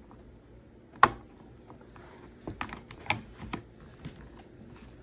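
A sharp click about a second in, then a quick run of lighter clicks and taps: plastic dolls and toy pieces being handled and set down.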